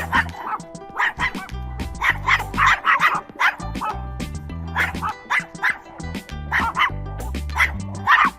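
Puppy yipping and barking in quick bursts of short, high yaps, over background music with a steady bass line.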